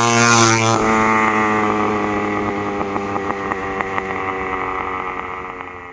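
Small engine running at a steady pitch, with a brief swish in the first second, fading gradually toward the end.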